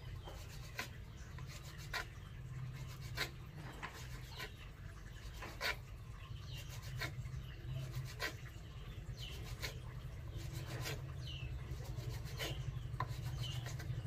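A kitchen knife chopping raw tuna on a wooden block: the blade knocks on the wood irregularly, about once a second, over a steady low hum. A few short, faint high chirps come in the second half.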